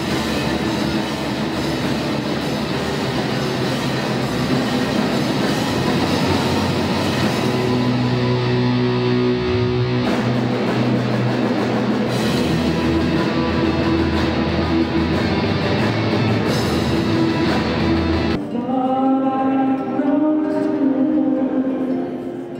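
Rock band playing live, with electric guitars, bass guitar and drums. About three-quarters of the way in it cuts abruptly to a softer song, with singing over an acoustic guitar.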